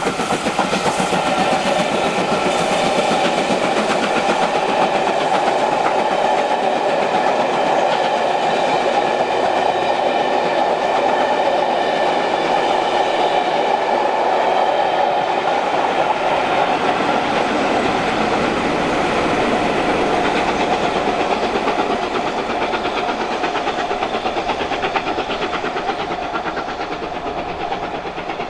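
Steam-hauled passenger train of Mk1 coaches running past at speed, a fast, dense clatter of wheels over the rails, loud and steady before slowly dying away over the last ten seconds or so.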